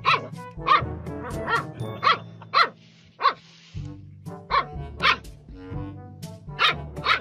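Puppy barking in short, high yaps at irregular intervals over background music.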